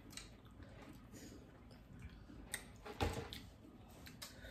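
Hands picking through seafood inside a plastic boil bag: faint scattered clicks, ticks and crinkles, with one louder knock about three seconds in.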